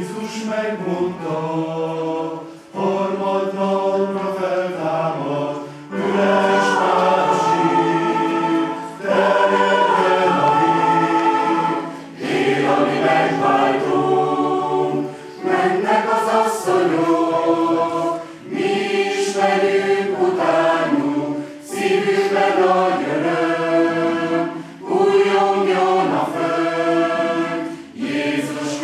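Mixed choir of men's and women's voices singing, in phrases of about three seconds, each ending in a short break.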